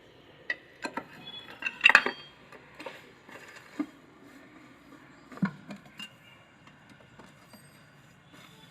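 Metal hand tools clinking and tapping on the bolts of a scooter's engine side case as they are fitted and tightened: a scattered series of sharp clinks, loudest about two seconds in.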